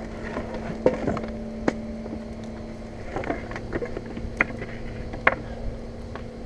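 A steady, engine-like mechanical hum holding one pitch, with a few single sharp cracks or snaps scattered through it.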